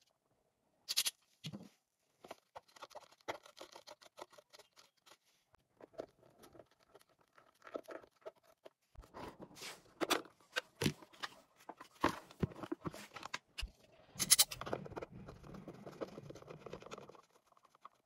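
Scattered clicks, knocks and scrapes of hands and a screwdriver handling the plastic housing of an old canister vacuum cleaner while its rusty screws are taken out. The handling gets busier and louder in the second half, with the loudest burst about two thirds of the way in.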